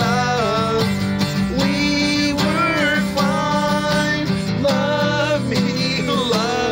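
Acoustic guitar strummed in chords, with a man singing a melody over it.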